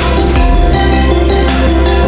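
Background music with held bass notes and a regular beat.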